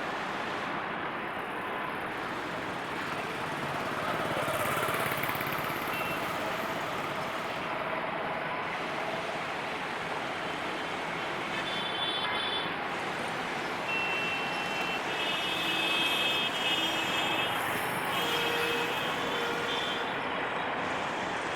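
Meter-gauge passenger train running on the track, a steady rolling noise throughout, with high thin squeals from the second half on.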